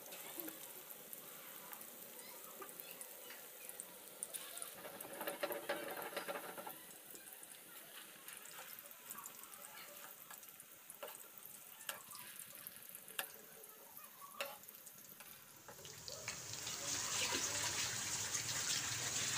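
Chicken kofta balls deep-frying in hot oil, sizzling and crackling, with a few clicks as a slotted spoon turns them. The sizzle grows louder and brighter about three-quarters of the way through.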